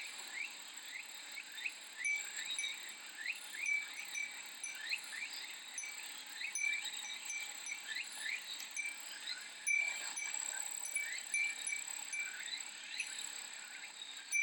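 A Japanese wind chime (fūrin) tinkling now and then over a steady, high chorus of cicadas, with many short chirping strokes repeating through it.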